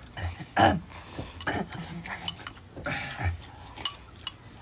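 Hurried eating of instant noodles: slurping, with spoons clinking and scraping in bowls in short irregular bursts.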